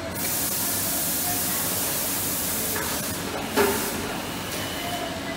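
Compressed air hissing at an injection moulding machine with its pneumatic unloading robot: a steady blast that starts sharply and stops after about three seconds, followed by one loud clunk.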